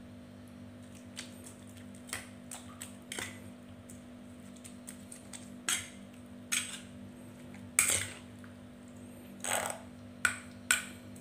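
Metal spoon stirring a wet, chunky fruit sauce in a stone mortar (cobek), with scattered clinks and scrapes of the spoon against the stone, louder and more frequent in the second half. A steady low hum runs underneath.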